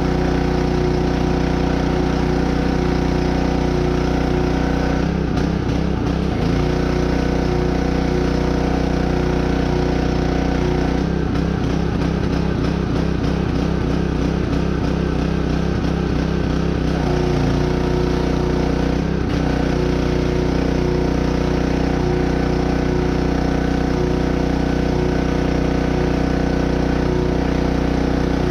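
An engine running steadily at constant speed, its note unsettled for a moment about five seconds in and again for several seconds from about eleven seconds in.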